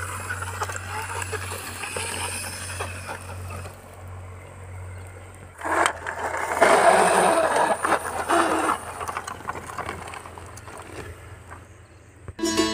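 Remote-control toy truck running over rough ground: a low steady hum with rattling, louder for a few seconds past the middle.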